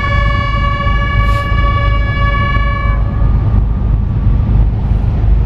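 A bugle holds one long steady note for about three seconds and then stops, sounded for the sunset lowering of the naval ensign. A steady low rumble runs underneath.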